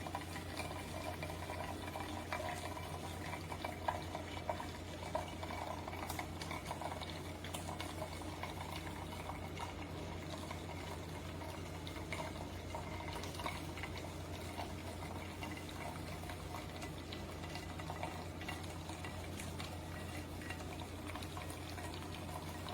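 Keurig K-Café Barista Bar single-serve coffee maker partway through brewing a 12-ounce cup: a steady low machine hum with hot coffee streaming into the mug.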